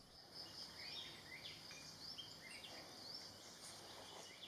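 Faint forest ambience: a steady high insect drone with many short, high bird chirps scattered through it.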